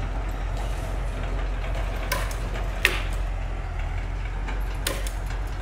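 A steady low, engine-like rumble, with a few sharp knocks about two, three and five seconds in.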